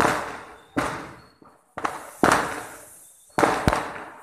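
Aerial fireworks going off: about five sharp bangs in a little over three seconds, some close together, each fading away with a short echo.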